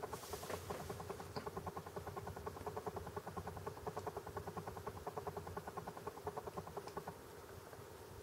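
Laptop's old ATA hard drive seeking hard while Windows loads a program: a fast, uneven run of faint ticks, several a second, that stops about seven seconds in, over a faint steady hum. A single click comes at the very start.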